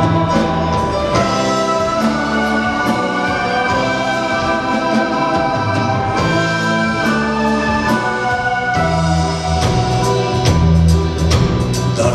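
Live pop band playing an instrumental break: held keyboard chords over bass, with drums and cymbals keeping a steady beat.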